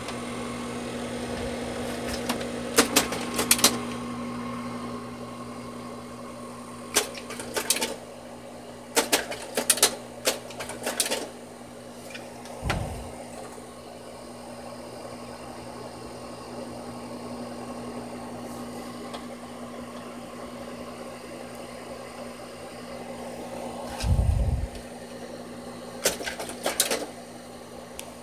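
Kodak Carousel 4200 slide projector's cooling fan running with a steady hum, with scattered sharp clicks and two dull knocks, about a third and near seven-eighths of the way through.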